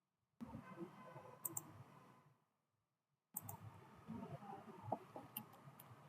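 Faint computer mouse clicks, several in small groups, over low background noise.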